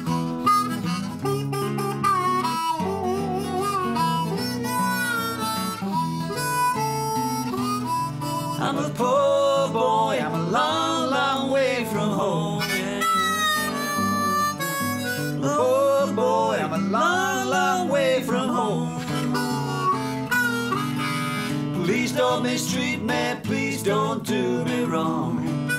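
Diatonic harmonica solo over acoustic guitar accompaniment in a country-blues tune. Partway through, the players join in with wordless vocal hollers in pitch-bending arcs.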